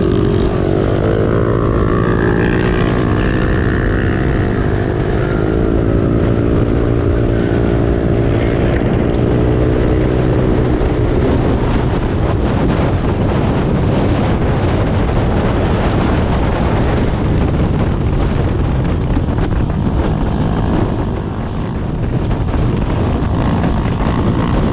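Motorcycle engine running while riding, its pitch rising and falling over the first ten seconds or so, then mostly covered by steady wind noise on the microphone.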